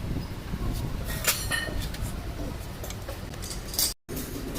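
Light metal clinks and taps of tools and gearbox parts being handled, a few sharp strikes over a steady low workshop rumble.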